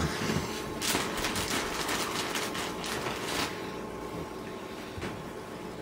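Reef aquarium's water circulation: a steady low pump hum under rushing water noise, which grows louder for a couple of seconds about a second in.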